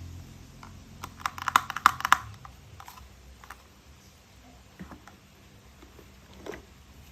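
A quick run of light plastic clicks and rattles about a second in, then a few scattered clicks: plastic toy train pieces being handled and fitted together. A low hum fades out at the start.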